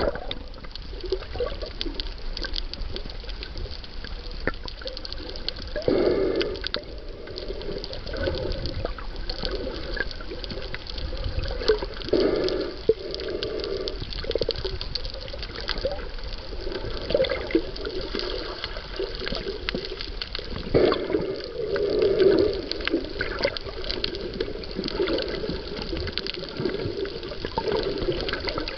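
Muffled underwater water noise picked up by a submerged camera: a steady rushing and bubbling that swells now and then, with many small scattered clicks.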